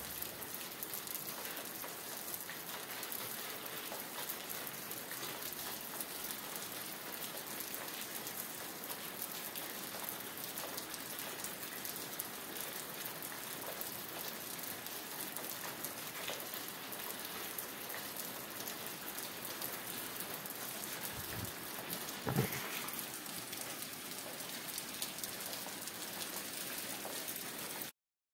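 Steady rain falling, a continuous hiss of drops pattering on surfaces. Two brief low thuds come about a second apart some two-thirds of the way through. The sound cuts off suddenly near the end.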